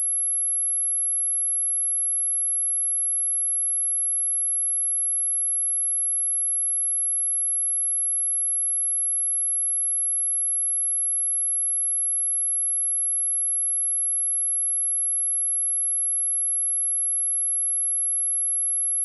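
A pure 11114 Hz sine-wave test tone, one steady high-pitched whistle that holds unchanged, played to test a speaker or to shake water and dust out of it.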